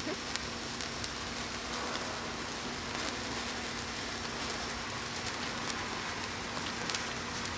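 Golden wire sparklers burning with a steady fizzing hiss, dotted with fine crackles.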